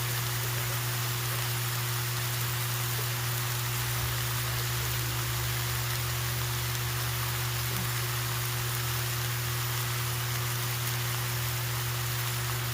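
Steaks and pork chops sizzling on a Blackstone 22-inch Adventure Ready propane griddle: a steady, even hiss with a constant low hum underneath.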